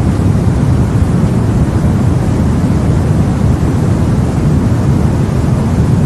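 Steady sleep-aid white noise, weighted toward the low end so it sounds like a deep, even rush with no changes.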